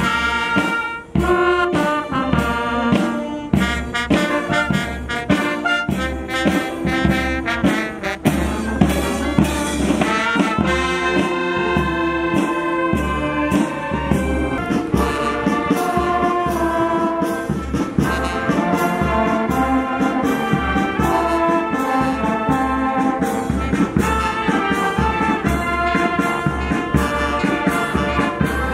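Uniformed brass band playing, with trumpets and a sousaphone carrying the tune over a steady drum beat.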